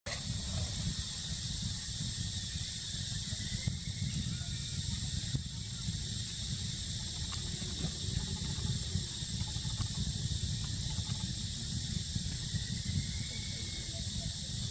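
Steady outdoor ambience: a constant low rumble and a steady high-pitched hiss, with a few faint short calls about four seconds in, near the middle and near the end.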